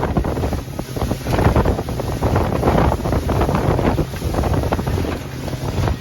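Wind buffeting the microphone on an open boat at sea: a loud, gusting rumble that rises and falls.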